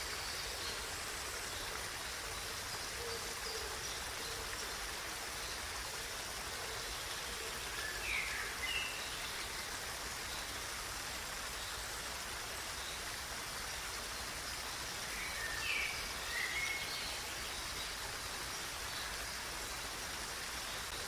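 Steady rush of flowing water, like a stream. A bird gives short chirping calls in two brief bouts, about eight seconds in and again around sixteen seconds.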